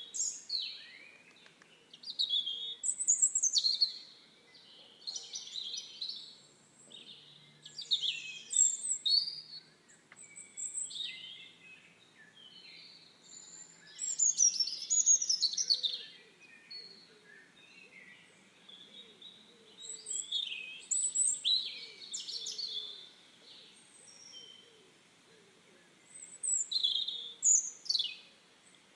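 Songbirds chirping and singing in short bursts every few seconds, with quick high chirps and fast sweeping notes over a faint steady background hiss.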